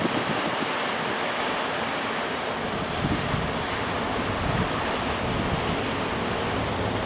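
Ocean surf and strong wind: a steady roar of waves, with wind buffeting the microphone in a few brief low gusts.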